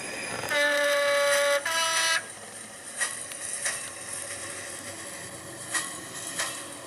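Model locomotive's Hornby HM7000 sound decoder sounding its horn through the loco's small speaker: a longer lower note of about a second, then a shorter higher note. After it, quieter running sound with a few sharp clicks.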